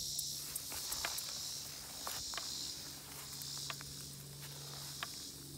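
Electric fence charger clicking out its pulses about once every second and a bit, a sign that the repaired fence is live and hitting. Crickets chirr steadily behind it.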